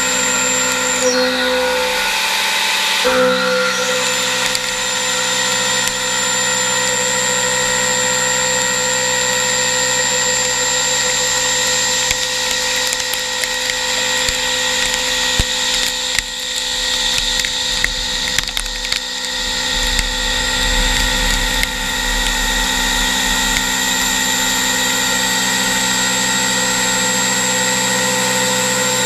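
Hurco VMX42i CNC vertical machining center milling a metal part: a steady high spindle whine over the noise of the end mill cutting, dropping out briefly about two seconds in. A low rumble comes in for a few seconds past the middle.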